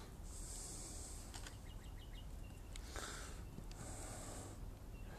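Soil being scraped off the edge of a bonsai's root ball with a thumb: a few short, faint rasping scrapes, with small crumbly ticks between them.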